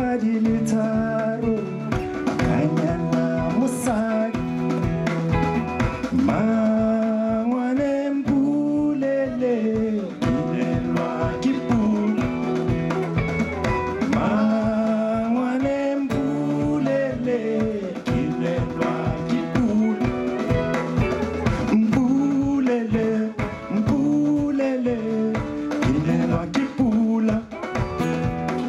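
Live band music: a singer's melody over a steady drum beat, with guitar and percussion.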